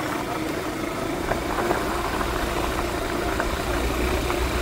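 Motorcycle engine running steadily on the move, with a low rumble that grows louder after about a second and a half.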